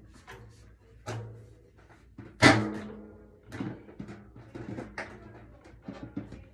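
Irregular knocks and clunks of drum shells and hardware being handled while a drum kit is assembled. Several knocks leave a drum ringing briefly at a low pitch. The loudest knock comes about two and a half seconds in.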